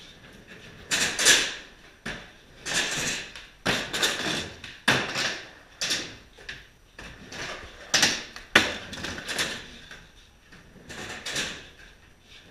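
Skateboard rolling on plywood ramps, with wheels rumbling across the wood and sharp clacks as the board and trucks hit the ramps and coping. The sound comes in about a dozen loud surges, roughly one a second.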